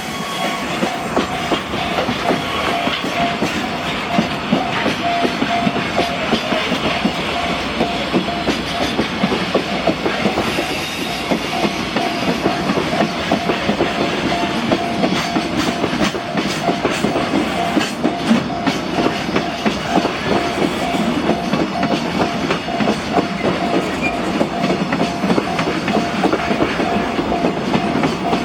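A train running through a level crossing, its wheels clacking over the rail joints, while the crossing's warning bell keeps ringing with a repeating tone.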